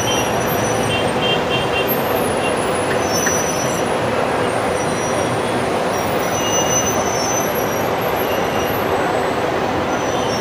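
Steady noise of heavy road traffic jammed with buses, with a few short, faint high squeals now and then.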